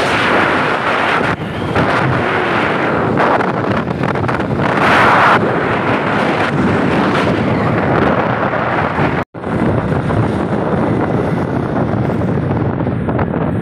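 Loud, steady rush of wind on the microphone of a phone carried on a moving motorbike, with the bike's road and engine noise mixed in. The sound cuts out for an instant about nine seconds in.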